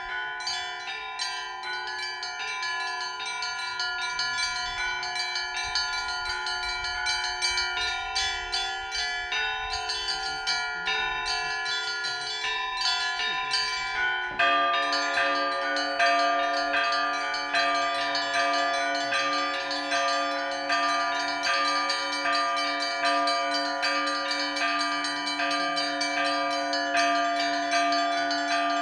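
Russian Orthodox monastery bells ringing: small high bells struck in quick patterns over the sustained tones of larger bells. About halfway through, a heavier, lower-pitched bell is struck and keeps sounding, and the ringing gets louder.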